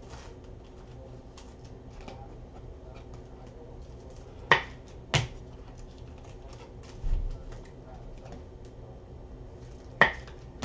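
Sports cards and their plastic packaging being handled on a table: three sharp clicks, about four and a half, five and ten seconds in, a dull thump about seven seconds in, and faint ticks between.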